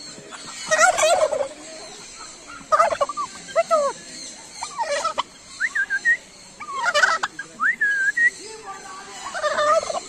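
Birds calling in repeated bouts of warbling calls every second or two, with a few short rising whistles between them.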